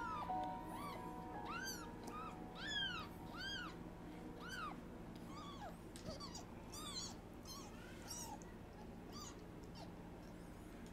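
Newborn kitten mewing over and over in short high cries that rise and fall, while it is bottle-fed. The cries come thick and fast at first and thin out toward the end, over faint background music.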